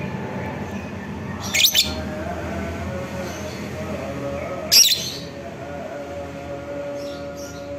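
Fischer's lovebird calling: two short, loud, shrill chirps about three seconds apart, over a steady low background hum.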